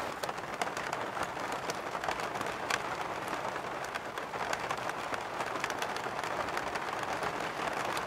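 Steady rain on a camper van's roof, heard from inside: an even hiss with many scattered taps of single drops.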